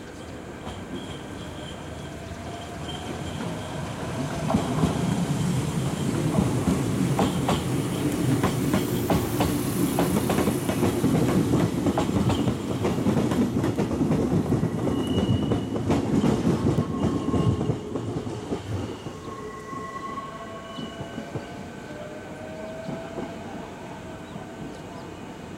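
A Kintetsu limited express electric train running past on the adjacent track. Its wheels clack rhythmically over the rail joints. The rumble builds over the first few seconds, stays loud for about twelve seconds, then fades away.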